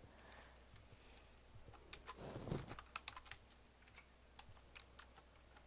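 Computer keyboard being typed on, faint irregular key clicks, as text is entered. A brief low sound about halfway through stands out above the clicks.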